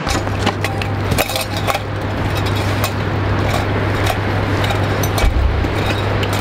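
Camping gear clinking and rattling on a loaded backpack as a person walks, with many short, irregular clicks and clinks over a steady low hum.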